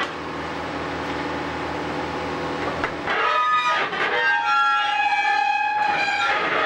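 An excavator's diesel engine runs steadily. About three seconds in, the steel rails start a loud howling screech, with several high tones that shift and waver, as the excavator's grab pulls at the track.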